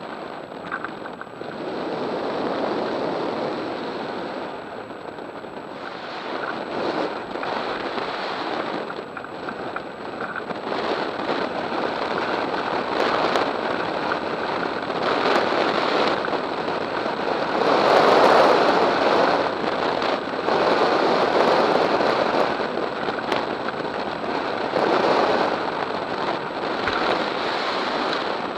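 Rushing wind noise on the microphone of a camera mounted on a hang glider in flight, the airflow swelling and easing in gusts, loudest about two-thirds of the way through.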